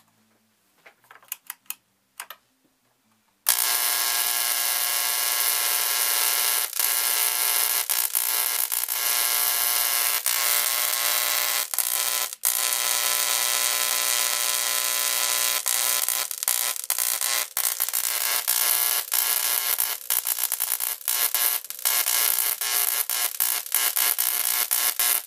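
High-voltage arc drawn between two copper-wire electrodes by oil-filled ignition coils, driven from the mains through a 120 microfarad current-limiting capacitor and pulling about 6 amps. It is a loud, steady buzz with a hiss that switches on about three and a half seconds in, after a few faint clicks, and breaks off briefly a couple of times.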